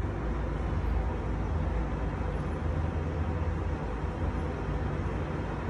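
Steady low rumble with a faint even hiss and no distinct events.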